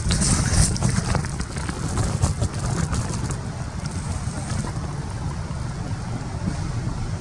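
Wind buffeting the microphone: a steady, choppy low rumble, with a brighter crackling hiss and scattered clicks for about the first three seconds that then die down.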